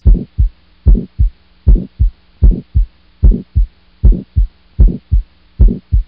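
Recorded heart sounds of aortic stenosis, a systolic murmur: a regular heartbeat at about 75 a minute, each beat a strong first sound followed by a softer second sound about a third of a second later, over a faint steady hum.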